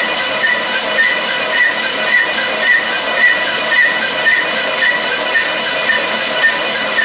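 Loud, steady hiss of running machinery, with a faint pulse repeating about twice a second.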